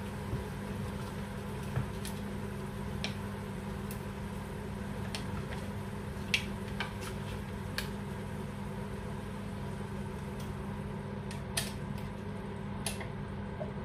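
Sauce simmering in a pan on a gas hob as single cream is poured in and stirred, over a steady low hum. A few light, sharp taps of the spatula and cream bottle against the pan.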